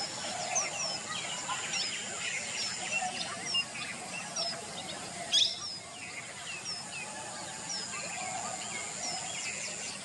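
A chorus of several small birds: short, high, falling chirps repeated again and again, with other twittering and one louder call about five seconds in.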